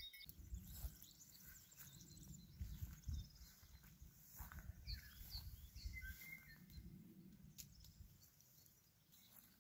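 Faint outdoor ambience: a low, steady rumble with a few faint bird chirps around the middle.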